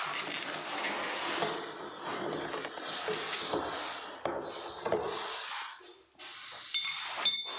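Cardboard packaging of a new electric paddle mixer being handled: flaps rustling, packing pieces scraping and knocking as they are lifted out of the box. Near the end, two sharp metallic clinks with a short ring.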